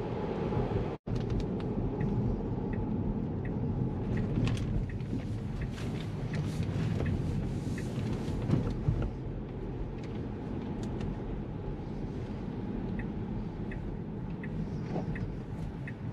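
Road noise inside a Tesla's cabin on wet pavement in the rain: a steady low tyre rumble with a hiss of spray and no engine sound. There is a split-second gap about a second in and faint regular ticking at times.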